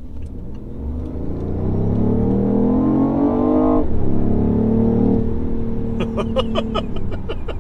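BMW i8's turbocharged three-cylinder engine accelerating at full throttle, heard inside the cabin with the exhaust flap held open. The pitch rises, drops sharply at an upshift about four seconds in, climbs again, then levels off.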